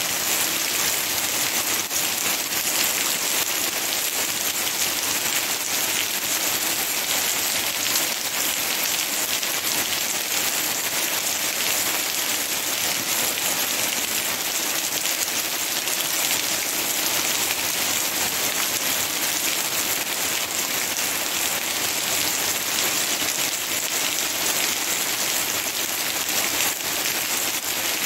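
Steady rain shower: an even hiss of falling drops, with no let-up.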